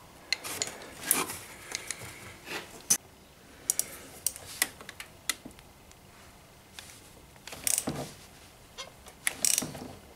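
Scattered clicks and knocks of a 32 mm socket wrench and extension being fitted onto the oil filter housing cap, with a couple of longer scraping rustles near the end.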